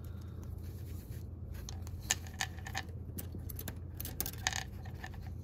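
Fingers working a metal nut over the small plastic connector of an LED's wire, making a scatter of light clicks and scrapes, most of them in the second half, over a steady low hum.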